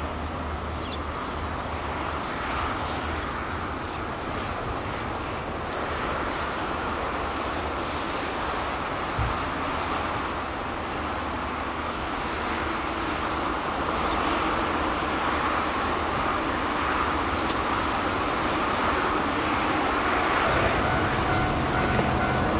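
Steady rumble of distant vehicle noise with no clear events, slowly growing louder through the second half, with a faint steady hum joining near the end.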